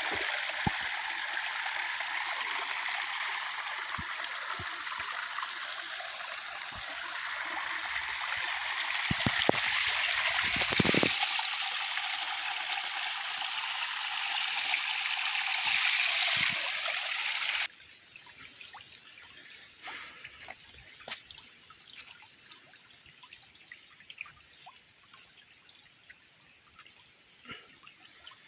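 Creek water trickling and splashing steadily, cutting off abruptly about two-thirds of the way through; after that only faint scattered drips and small clicks.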